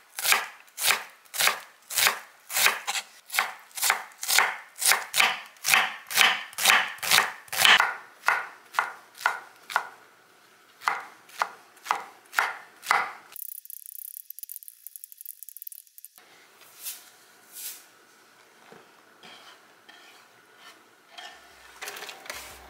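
Seki Magoroku kitchen knife chopping onion on a wooden cutting board, in steady strokes about three a second, then slower, sparser chops through mushrooms. Near the end the diced onion is tipped into a frying pan.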